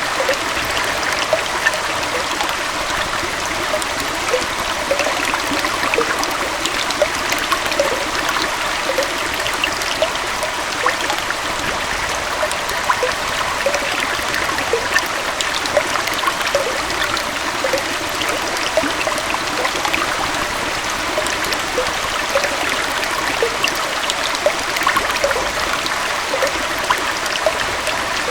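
A small waterfall or stream of water flowing steadily, a constant rush with many small splashes and droplet plinks through it.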